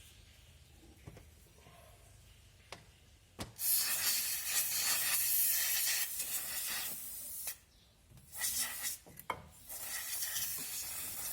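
Aerosol can spraying a rubber-care product onto drum-brake rubber parts. There are a few light clicks, then one long spray of about four seconds starting a little over three seconds in, a short burst, and a second spray of under two seconds near the end.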